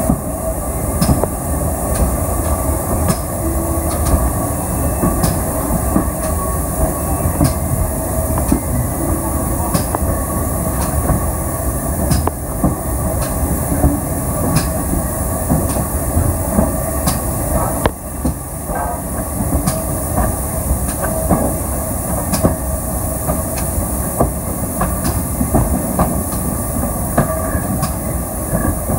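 Railway carriages running along the line: a steady rumble of wheels on track, with regular clicks of the wheels over rail joints about once a second.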